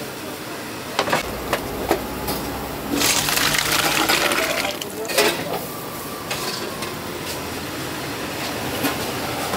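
Liquid splashing as it is ladled and poured between metal cooking pots, with several sharp clinks of metal vessels knocking together.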